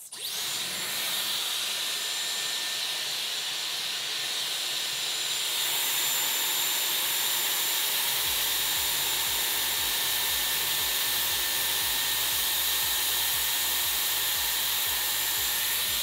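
Dyson Airwrap styler blowing air through its curling barrel as a section of hair wraps around it: a steady airy hiss with a thin high-pitched motor whine. A low rumble joins about halfway through.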